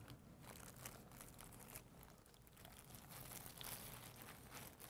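Near silence, with faint, scattered crinkling and clicking handling noises.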